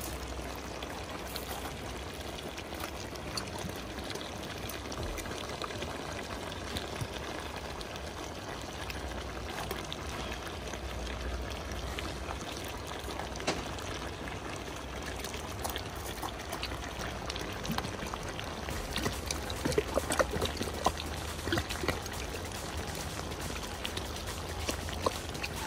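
Goat stew bubbling at a boil in a large aluminium wok: steady bubbling with scattered small pops, and a few louder pops about three-quarters of the way in.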